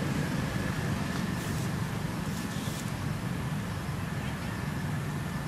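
Steady low rumbling background noise, with two brief soft hissing sounds about one and a half and two and a half seconds in.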